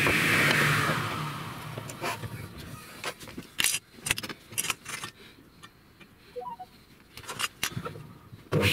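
Table saw running down after being switched off, its whine falling in pitch and fading over the first second or so. This is followed by scattered metallic clicks and knocks as the rip fence and a metal square are set on the steel saw table. The saw starts up again suddenly near the end.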